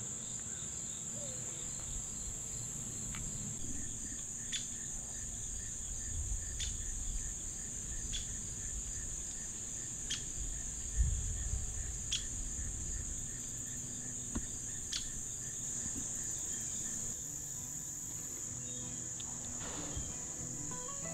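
A steady, high-pitched insect chorus in the woods, with sharp ticks about every two seconds through the middle and a low thump about eleven seconds in.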